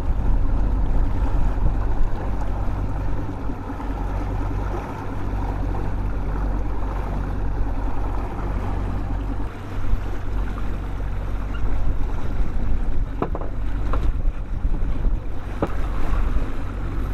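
Boat engine running steadily at trolling speed, a low hum under wind on the microphone and water rushing past the hull. A few short sharp clicks near the end.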